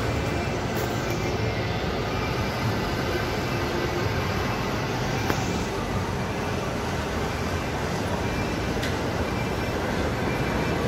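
Steady city background noise, a continuous rumble of traffic with no single event standing out.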